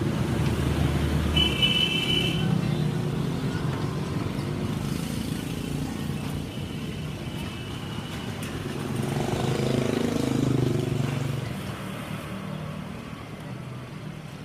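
Street traffic with engines running past. A brief high toot sounds about a second and a half in, and a vehicle passes, loudest about ten seconds in, then fades.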